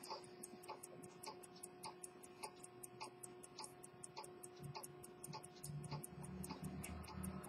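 Antique Swiss quarter-repeater pocket watch ticking steadily: the lever escapement beating at about five ticks a second as the bimetallic balance swings. A faint low rumble joins in during the second half.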